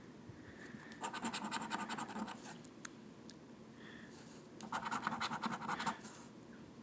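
Coin scratching the coating off a paper scratch-off lottery ticket in two bursts of quick strokes, one about a second in and another near five seconds, each lasting about a second.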